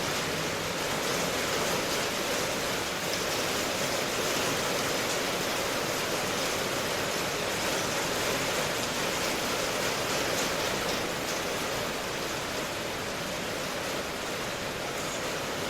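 Steady rain ambience: a dense, even hiss of rainfall with no distinct drops or thunder.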